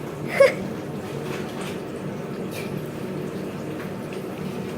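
Hot oil in a deep fryer bubbling steadily around battered candy bars. About half a second in there is a brief high-pitched sound.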